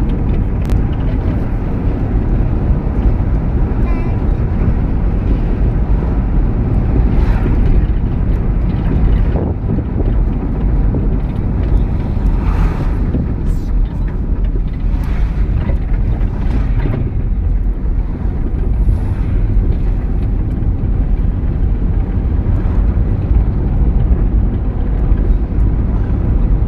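A moving vehicle's steady low rumble of engine and road noise, with wind buffeting the microphone and a few brief knocks and rattles.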